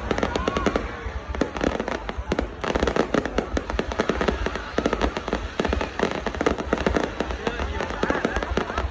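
New Year fireworks going off in a dense, continuous barrage of rapid cracks and pops over a low rumble.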